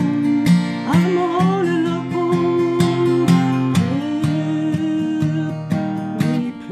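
Song accompaniment: an acoustic guitar strummed in a steady rhythm, with a wavering melody line above it.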